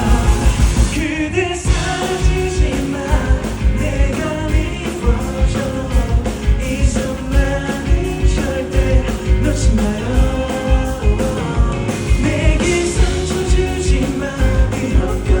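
Live band playing a pop-rock song with singing, heard from the audience, with a steady drum beat.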